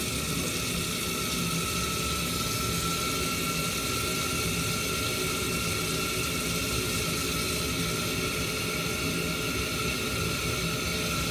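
Ideal Logic combi boiler running on a hot-water draw: a steady rush of flowing water with a thin, steady whine over it. This is the sign that the new flow turbine is sensing flow and the boiler is heating the water.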